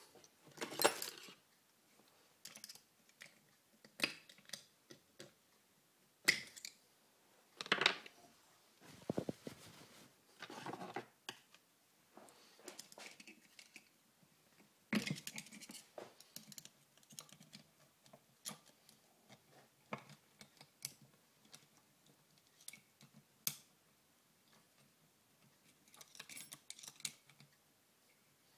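Hand work on an early Harley-Davidson Shovelhead four-speed gearbox: metal parts and tools clicking, knocking and scraping at irregular intervals, with a few sharper knocks now and then.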